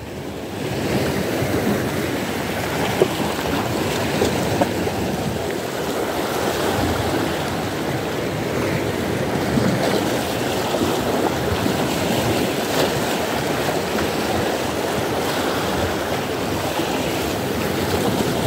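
Sea surf washing steadily against the shore, with wind on the microphone; the sea is rough and choppy.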